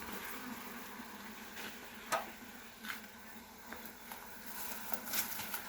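Faint steady hum of honeybees from an opened hive, broken by a few light clicks and knocks of wooden frames being handled, about two, three and five seconds in.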